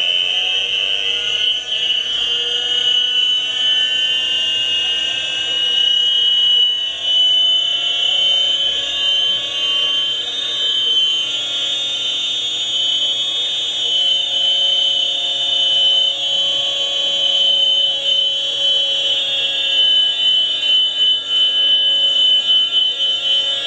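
High-pitched whine of a radio-controlled Airwolf scale model helicopter's engine and rotor, played back through computer speakers from two videos at once, so two whines at slightly different pitches overlap. The pitch rises over the first few seconds, then holds steady.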